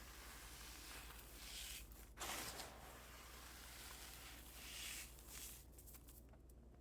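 Fragile reformed cornstarch pieces being crushed and crumbled: soft crunches in a few separate swells, the sharpest about two seconds in, fading near the end.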